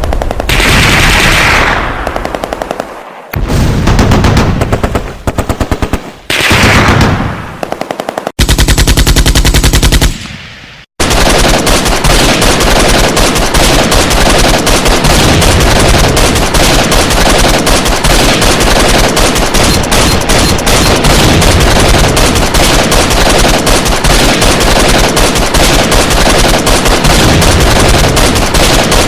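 Automatic machine-gun fire in several separate bursts over the first ten seconds or so. After a brief break about eleven seconds in, it becomes one long, unbroken stretch of rapid fire.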